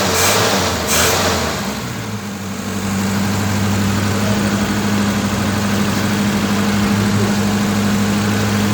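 Ford Capri Mk2's engine running: the revs drop about a second and a half in, and it settles into a steady idle.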